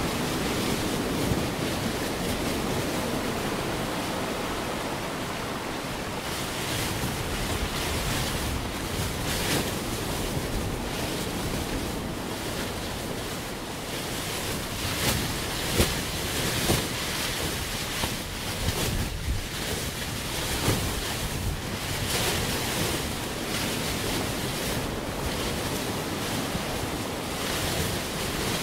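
Recorded ocean surf mixed with wind, the installation's ocean and wind audio tracks: a steady wash of noise with waves surging in every few seconds.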